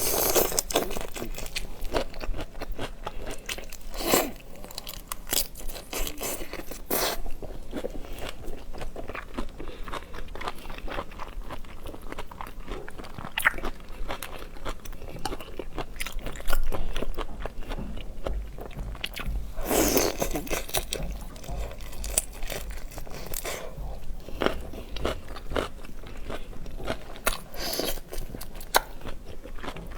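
Close-up eating sounds of seafood: steady biting, chewing and crunching, with louder bursts of crunching every few seconds.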